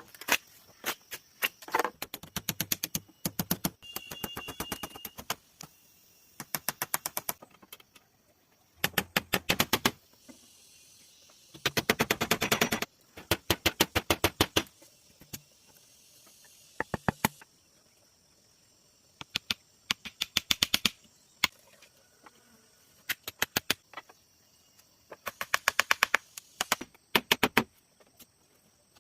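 Bursts of rapid, sharp knocking, roughly ten strikes a second. Each burst lasts a second or two, with short pauses between, typical of tools chopping or striking bamboo.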